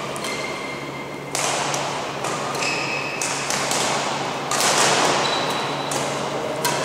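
Badminton rally: rackets striking a shuttlecock as a string of sharp hits, with short high squeaks of shoes on the court floor.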